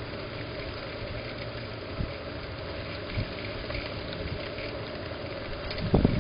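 Wind buffeting the camera microphone: a steady rushing noise with low thumps from gusts, a strong one about six seconds in.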